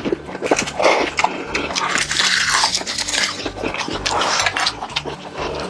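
Fried chicken being bitten and chewed close to the microphone: the crisp breading crunches in many short crackles.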